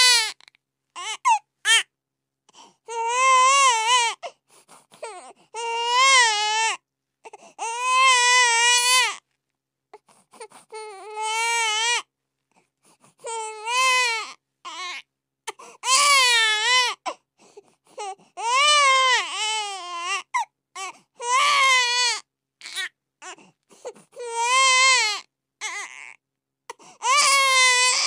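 Baby crying: a string of wavering wails of one to two seconds each, broken by short gasps and gaps of silence.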